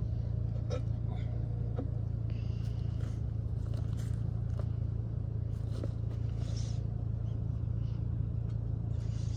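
Vehicle engine idling steadily, with a few faint clicks and scrapes.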